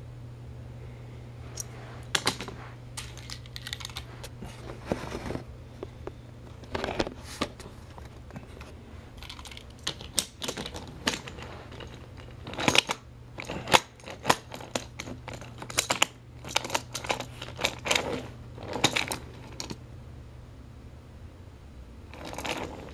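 Irregular small clicks and taps, busiest in the middle stretch, over a steady low hum.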